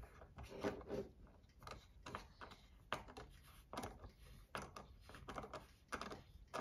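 Small metal knife parts and pivot hardware of a Demko AD20 folding knife being handled and screwed together: faint, irregular clicks and scrapes, a few a second.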